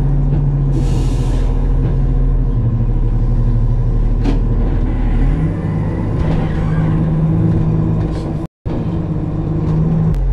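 Loader's diesel engine running, heard from inside the cab, with a short hiss about a second in. About five and a half seconds in the engine note changes and rises as the machine is driven.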